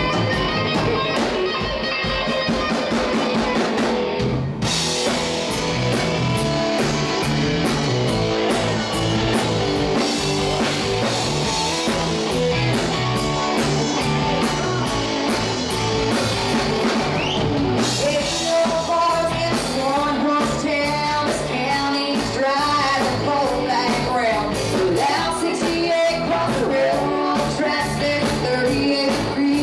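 Live rock band playing: drum kit, electric guitars and bass, with women singing lead vocals.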